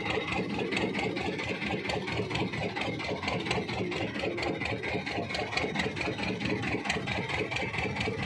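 Fishing boat engine running steadily, with a fast, even chugging.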